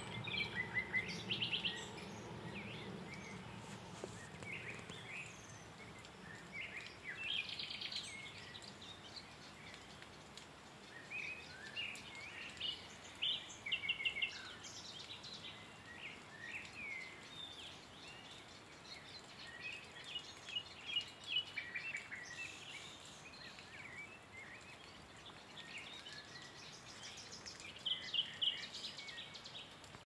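Nightingale singing in separate short phrases of rapid repeated notes and whistles, with brief pauses between phrases. A low background rumble fades out over the first few seconds.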